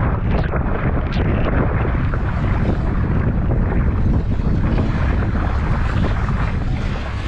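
Wind buffeting the microphone over water splashing and slapping against a kayak's hull as it moves through choppy water, with a few sharper splashes in the first second or so.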